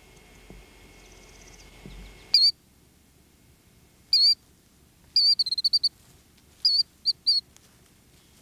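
Killdeer calling: loud, high, piercing single notes, a quick rattling run of short notes about halfway through, then three more short notes.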